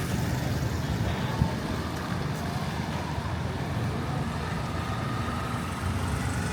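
Street traffic: a steady hum of passing vehicle engines and tyres, with one short knock about a second and a half in.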